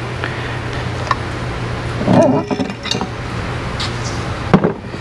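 Metal parts of a Harley Twin Cam 103 bottom end being handled as the crankcase is split and the flywheel assembly is freed: a few light clinks, a short grunt of effort about two seconds in, and a sharp metal knock near the end, over a steady background hum.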